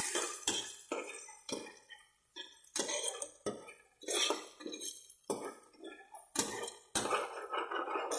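A steel ladle scraping and clinking against the inside of an aluminium pressure cooker as food is stirred in it. It makes a quick irregular series of knocks and scrapes, about two a second, each ringing briefly.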